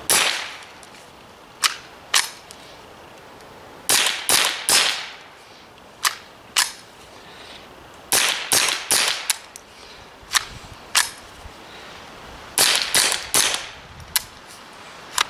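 A string of suppressed .22 LR rifle shots, a dozen or more sharp reports at uneven intervals, some in quick clusters, each with a brief ring. The rifle has a 3D-printed PLA suppressor and is firing near-subsonic target ammunition: the shots are nice and quiet, but this ammunition does not cycle the rifle's action very well.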